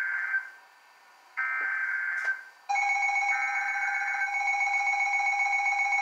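Emergency Alert System tones: the end of the buzzing digital header bursts, a second of quiet, another header burst about a second long, then about 2.7 s in the steady electronic attention tone starts and holds. It is the alert signal that opens a tornado warning broadcast. A brief click falls just before the attention tone.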